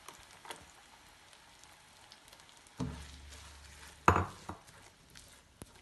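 Chopped onions sizzling faintly in oil in a non-stick wok while a silicone spatula stirs them, with a few short knocks and scrapes of the spatula against the pan, the loudest just after four seconds in.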